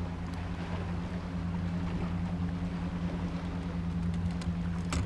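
Boat engine idling, a steady low hum, with a few faint clicks near the end.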